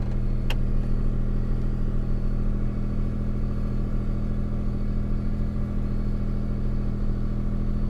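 Mitsubishi 3000GT VR4's twin-turbo 3.0 L V6 (6G72) idling steadily at a fast idle near 2,000 rpm, heard from inside the closed cabin, on its first start since a new fuel filter was fitted. A single sharp click sounds about half a second in.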